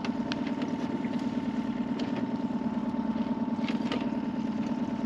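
Small outboard motor running steadily at trolling speed, a low, even drone. A few light clicks sound over it.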